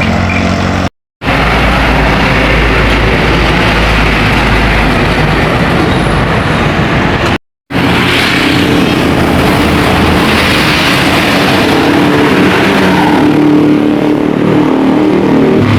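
Buses and other road traffic passing close by, a continuous loud mix of engine and tyre noise, with a deep rumble in the first part and a steady engine drone in the second. The sound drops out completely twice, briefly, about a second in and about halfway through.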